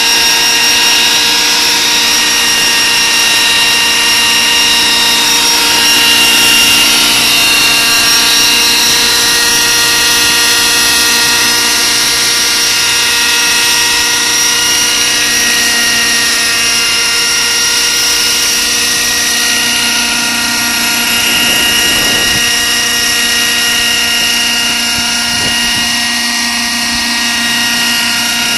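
Radio-controlled Schweizer 300 scale model helicopter hovering low, its motor and rotors giving a loud, steady whine whose pitch wavers slightly as it holds its hover.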